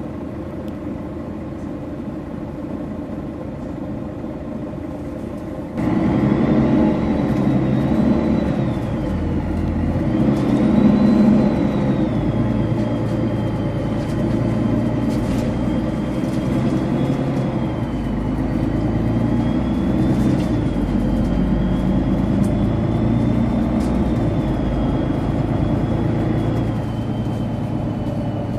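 Mercedes-Benz Citaro O530G bus's diesel engine running steadily, then pulling away about six seconds in, louder. A turbocharger whistle then rises and falls with the engine speed.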